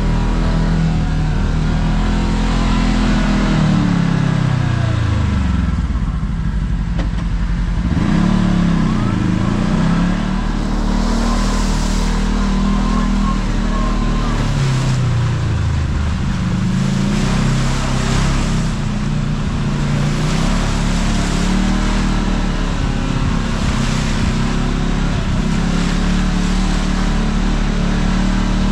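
Kawasaki KRX side-by-side's engine running under way, its pitch rising and falling as the throttle is worked. It drops low about six seconds in and again around fifteen seconds, then climbs back.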